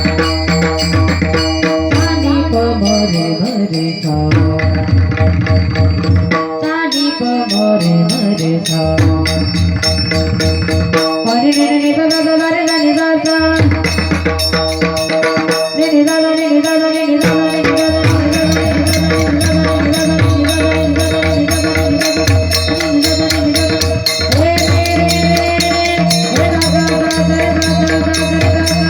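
Instrumental passage of Marathi devotional music: a mridang barrel drum plays deep strokes in a steady rhythm, under a held melody, with small cymbals jingling on the beat.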